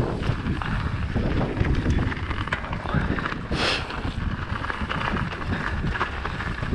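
Wind buffeting the camera microphone over the noise of mountain bike tyres rolling down a dirt trail, with the bike rattling over bumps, and a brief hiss about three and a half seconds in.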